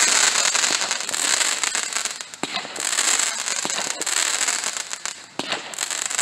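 Consumer fireworks shooting up trailing sparks: a continuous hissing crackle that swells and eases in waves, with a few sharp pops.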